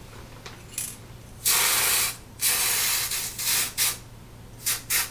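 Aerosol spray can sprayed onto hair, hissing in bursts: a long spray about a second and a half in, a shorter one after it, then several quick short puffs near the end.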